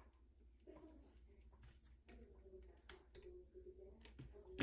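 Near silence with scattered faint clicks and taps as a circuit board is handled, ending in one sharper click.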